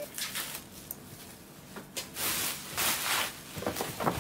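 Plastic wrapping crinkling and rustling as a wrapped gift is handled, in a few short spells with scattered crackles, loudest about two to three seconds in.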